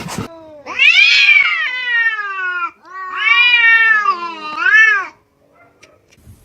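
Domestic cat meowing in three drawn-out calls. The first two are long and slide down in pitch, and the third is short.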